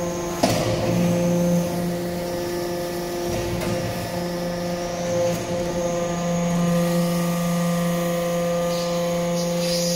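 Hydraulic metal-chip briquetting press running, with a steady hum from its hydraulic power unit and a few sharp clicks or knocks, the loudest about half a second in.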